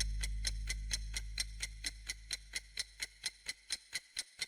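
Clock ticking sound effect: fast, even ticks at about four to five a second, over a deep low rumble that fades away during the first few seconds.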